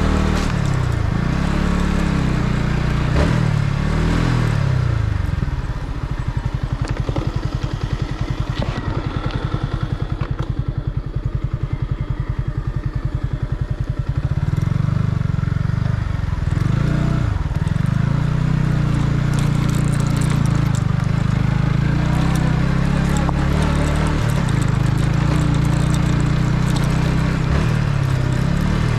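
Yamaha MT-15's 155 cc single-cylinder engine through its stock exhaust, heard from the rider's seat on the move. Revs rise and fall through gear changes at first, drop to a slow, even pulse at low revs for about eight seconds, then pick up again and hold steady at riding revs, with a gear change a few seconds later.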